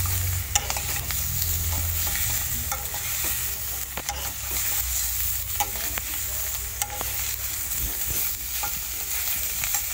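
Raw chicken and potato pieces sizzling in a hot kadai with no oil, stirred with a metal spoon that scrapes and clicks against the pan now and then.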